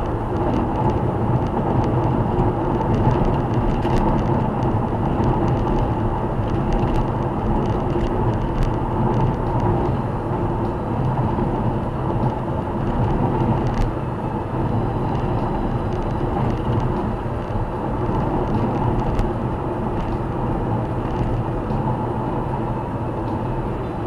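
Car cruising at highway speed, around 110 km/h: steady tyre and engine noise heard from inside the cabin.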